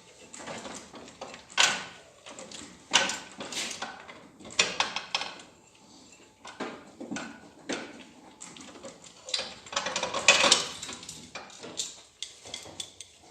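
Irregular metallic clinks and knocks of bare engine parts being handled as the camshafts are lifted out of a G4NA cylinder head, with a few louder clanks among quieter scraping.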